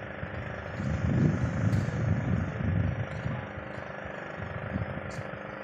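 An engine running steadily with a constant hum, with louder, uneven low rumbling between about one and three seconds in and a few short clicks.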